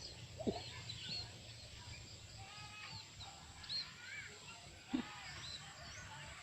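Small birds chirping and twittering in the background over a faint low hum, with two short louder calls sliding down in pitch, about half a second in and near the end.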